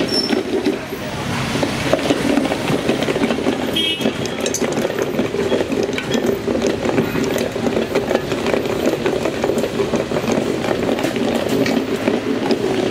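Lassi being churned by hand: a wooden churning stick spun back and forth between the palms in a small steel vessel, with occasional light clinks of metal, over a steady engine-like hum of street noise.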